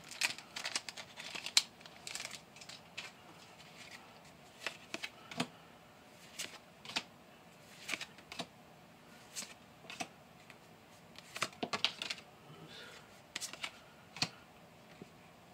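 Pokémon trading cards handled by hand: irregular soft clicks and slides as the cards of a freshly opened booster pack are flicked through one by one, a little busier in the first few seconds.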